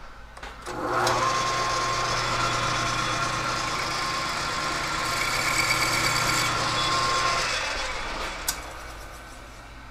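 Metal lathe switched on about a second in, its chuck spinning a clutch housing with a steady motor hum and whine, then switched off and spinning down. A sharp click comes near the end.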